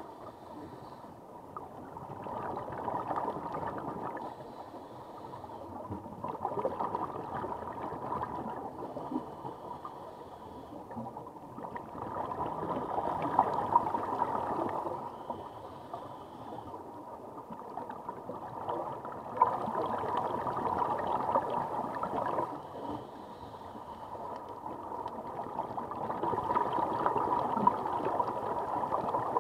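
Scuba diver breathing through a regulator, heard underwater: each exhalation releases a gush of gurgling bubbles lasting two to three seconds, coming about every six to seven seconds with quieter gaps for the in-breath between.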